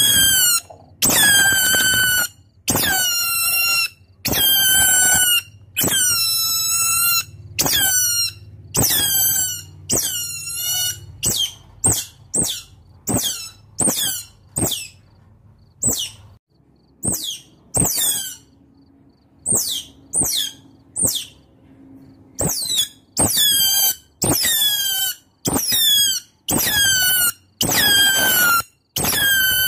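Otters calling with repeated high-pitched squeals, each up to about a second long and slightly falling in pitch, with a run of shorter, quicker chirps in the middle. These are the calls otters use to summon companions.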